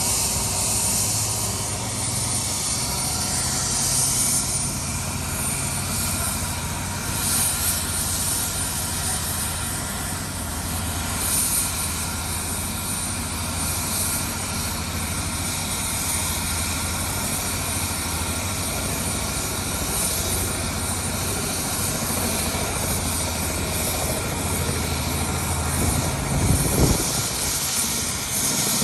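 Tour helicopter's engine and rotor running steadily, with a brief louder low rumble near the end.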